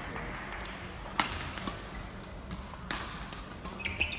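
Badminton hall: sharp racket hits on shuttlecocks, the loudest about a second in and another near three seconds, with brief squeaks near the end.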